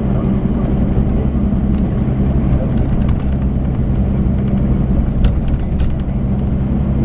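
Volvo B12B coach's diesel engine running at a steady speed, a constant low drone, with two short clicks about five seconds in.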